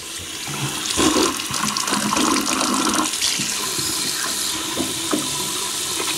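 A water tap turned on and left running steadily into a sink.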